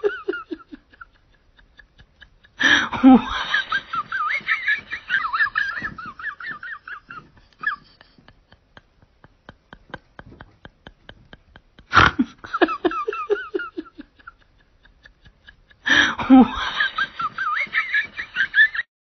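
A person laughing in high-pitched, wavering bursts: a long burst about three seconds in, and two shorter ones near the end, with quiet gaps between.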